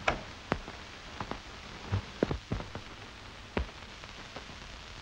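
Steady hiss and crackle of an old 1930s optical film soundtrack, with a scatter of irregular clicks and pops. The strongest pop comes just at the start, and a cluster follows around two seconds in.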